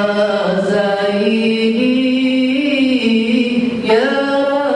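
A man singing a line of an Arabic qasidah (a praise poem to the Prophet) unaccompanied, in long drawn-out notes that rise and fall slowly, with a fresh phrase beginning near the end.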